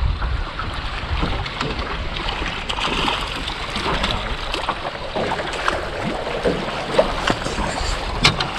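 Water slapping against a small boat's hull, with wind on the microphone and repeated short splashes as a hooked fish thrashes at the surface beside the landing net.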